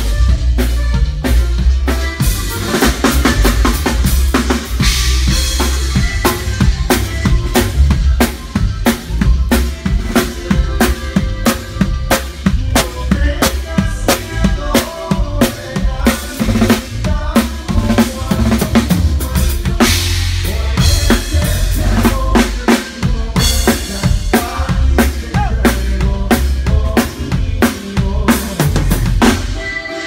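Live conjunto band playing loud: a drum kit keeps a steady beat on bass drum and snare, with accordion and bajo sexto playing along.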